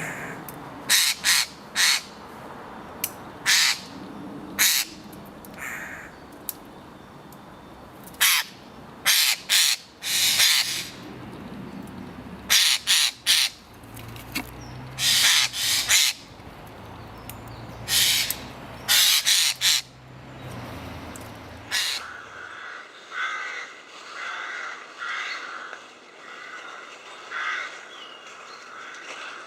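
Eurasian jay giving short, noisy screeching calls, singly and in quick clusters. About 22 seconds in, the sound changes to a quieter, duller stretch of softer, repeated calls.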